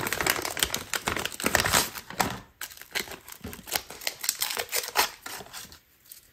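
Plastic food packet and paper sleeve crinkling and rustling as a frozen burrito is pulled out and unwrapped by hand. The dense crackling thins out about halfway through and stops near the end.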